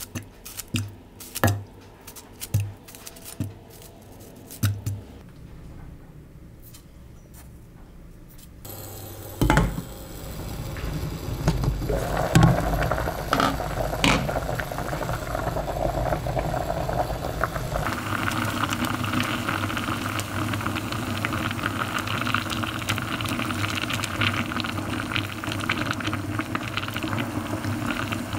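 Knife slicing a star fruit over a pot of water: a string of short, crisp cuts in the first several seconds. Then the pot boiling hard, a steady rolling bubble that grows fuller about eighteen seconds in.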